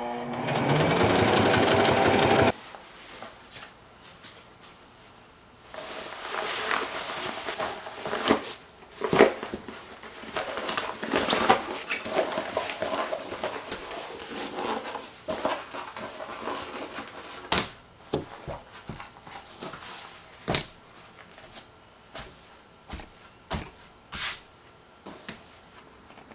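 Electric sewing machine stitching, speeding up and then stopping abruptly about two and a half seconds in. After that, fabric is handled, with rustling and scattered clicks and taps.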